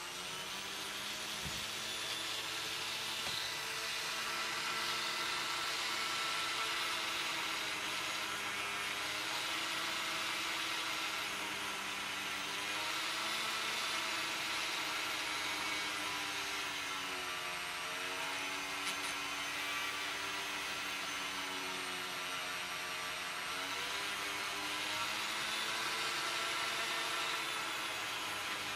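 Small handheld rotary tool with a felt polishing bob running steadily at high speed, buffing a chrome guitar tuning machine. Its whine dips briefly in pitch twice past the middle.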